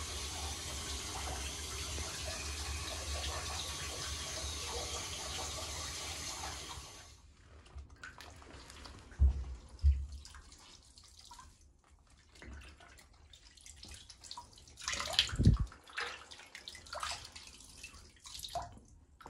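Steady rush of running tap water that stops about seven seconds in, followed by scattered splashes and drips of bathwater in a bathtub, with a few dull thumps, the loudest about fifteen seconds in.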